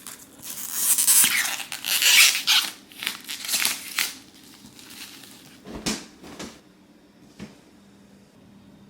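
Packaging on a card game box being torn open and crinkled, a loud rustling rip for a few seconds. It is followed by a few sharp knocks and clicks as the box is handled.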